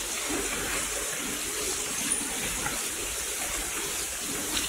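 Artificial downpour of Random International's Rain Room installation: a steady rush of water falling from the ceiling and splashing onto the floor.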